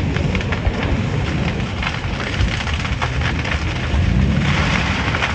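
Large wooden barn fire burning with a low rumble and constant crackling and popping. About four and a half seconds in, a louder hiss joins the fire.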